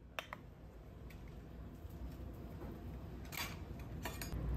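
Quiet room tone with a low rumble that grows slowly louder, and a few light clicks and taps, the clearest about three and a half seconds in.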